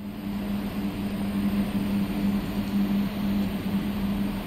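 200 kW three-phase inverter running in an overload test: a steady electrical hum over an even rush of noise, with a faint high-pitched whine above it.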